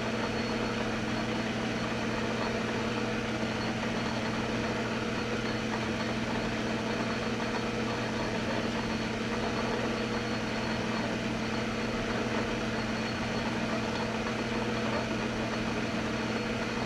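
Metal lathe running steadily, a constant hum with several steady tones, as a lathe file is worked over the spinning cast-iron threads to knock off the burrs.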